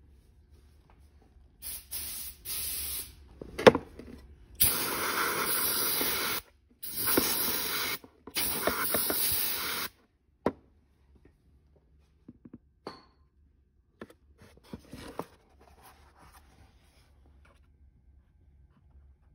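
Aerosol can of de-icer sprayed in a series of hissing bursts, the longest about two seconds, with a sharp click between them. It is chilling the airbox's cold-start flap thermostat to make the flap move. A few light clicks and knocks of the plastic airbox being handled follow near the end.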